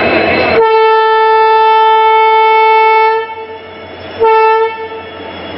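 Locomotive air horn: one long steady blast of about two and a half seconds, then a short second blast about a second later. The noisy rumble of the running locomotive is heard only just before the horn starts.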